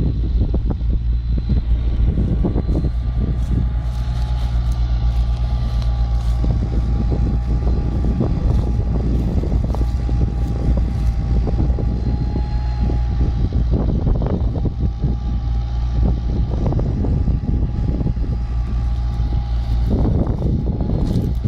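Diesel tractor engine running steadily while ploughing, with a faint steady whine above it and frequent short knocks and rattles.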